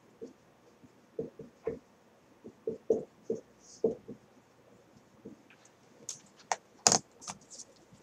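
Marker pen writing on a whiteboard: short, irregular strokes and taps. A single sharp click near the end.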